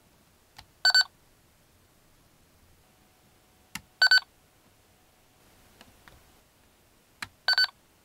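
2004 DX Kamen Rider Leangle transformation belt buckle toy being switched on: three times a sharp click, followed about a third of a second later by a short, high double electronic beep from the buckle.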